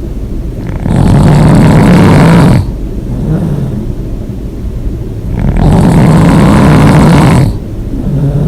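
A person snoring loudly with the mouth open: two long snores, each about two seconds, roughly five seconds apart, with a softer breath between them.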